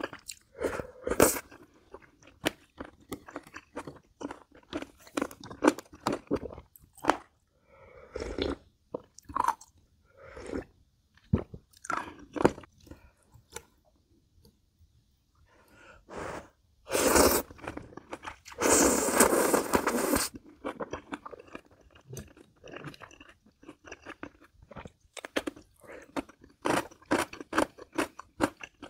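Close-miked mukbang eating of jjambbong noodles: wet chewing and smacking with many small clicks, a pause in the middle, then a loud slurp of noodles lasting about two seconds about two-thirds of the way through.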